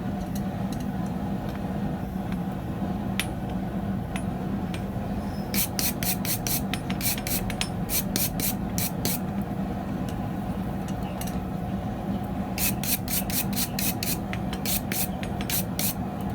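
A grinding wheel running steadily while an old-style hand-held dressing tool is pressed against it to true the wheel's face. The dresser makes a rasping clatter of rapid, even clicks in two spells, one in the middle and one near the end.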